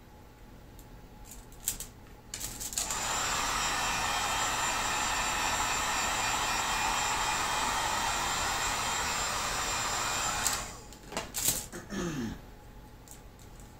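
Handheld electric heat gun blowing steadily for about eight seconds while heating PVC pipe, then switched off; a few short knocks and clicks follow as it is handled.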